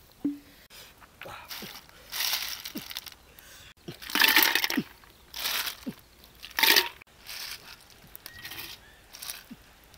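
Handfuls of snails dropped into a water-filled clay jar: shells clattering against each other and plopping into the water. It comes in several irregular bursts, the loudest about four seconds in.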